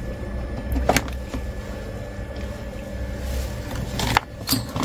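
Hands handling a desktop motherboard, with a few sharp clicks and knocks: one about a second in and several near the end, over a steady low hum.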